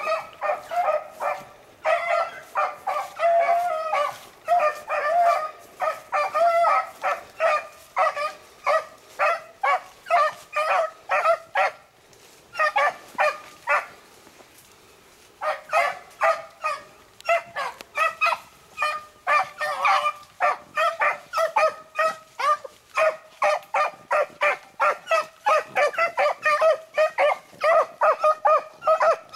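Beagles baying, giving tongue in quick, repeated barks as they run a rabbit's scent trail. About twelve seconds in they fall silent for about three seconds, then pick up again.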